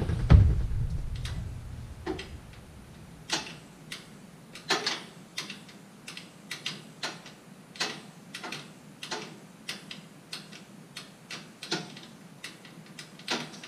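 A heavy thud at the start rings out and dies away over a second or so. Then come scattered light metallic clicks and taps, irregular and about one a second, as tools and steel parts of a powered-down Brunswick A2 bowling pinsetter are handled.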